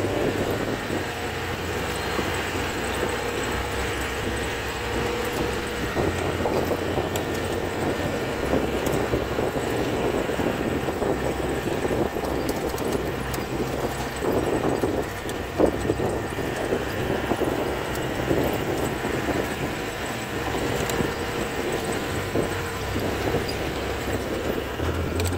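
CJ 550 jeep under way on a rough dirt track: its engine runs steadily while the body and fittings rattle over the bumps. The low engine hum grows and fades a few times.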